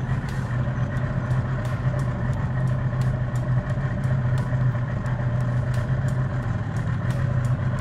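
Car engine running steadily at low revs, a deep even hum, with faint light ticks about twice a second, as it tows a boat trailer slowly.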